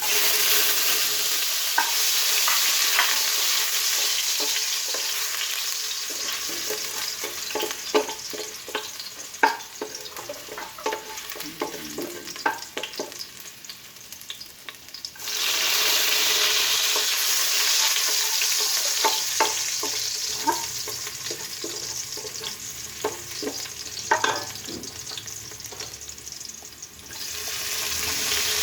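Hot cooking oil sizzling loudly as ginger goes into the pan, dying down while a spatula scrapes and clicks against the pan. The sizzle flares up suddenly about halfway through and again near the end.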